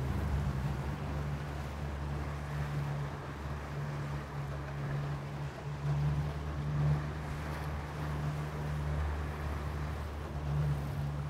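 Yamaha outboard motor on an aluminium dinghy running under way with a steady low drone, over the rush of water and wind.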